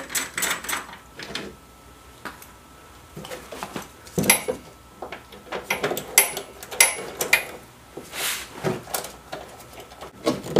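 Hand socket ratchet clicking in quick runs while undoing small 10 mm bolts on a car's plastic fender liner, with scattered knocks and clicks of the tool against the fittings. A run of rapid clicks dies away in the first second, and irregular clicks and knocks start about four seconds in.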